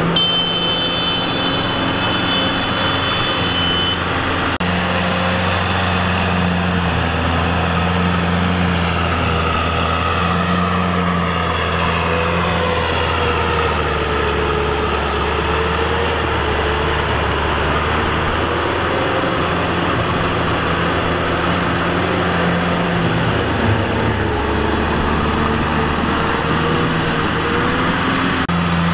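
Kubota M6040 tractor's four-cylinder diesel engine running steadily under working load, its pitch wavering slightly. A thin high whine sounds over it for the first few seconds.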